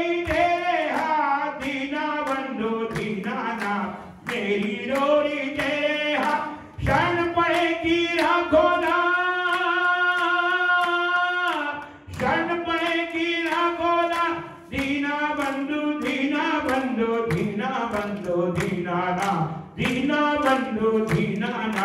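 Devotional Hindu bhajan sung by a group of voices in phrases, with a long held note midway, kept in time by a steady clapping beat.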